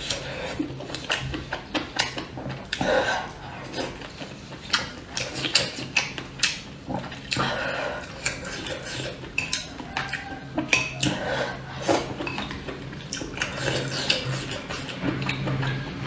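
Utensils clicking and clinking irregularly against a bowl and dishes while soup is eaten, with mouth sounds of eating between the clicks.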